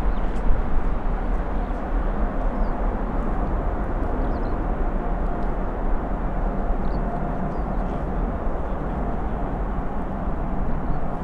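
Boeing 777F freighter's jet engines at takeoff power: a steady, loud rumble of jet noise with a faint steady whine.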